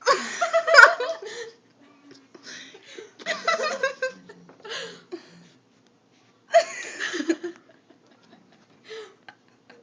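People laughing in several bursts, the loudest right at the start, with quiet gaps between.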